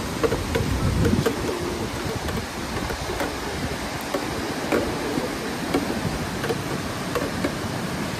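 River water rushing over rocks, a steady noise, with a few light clicks and knocks scattered through it.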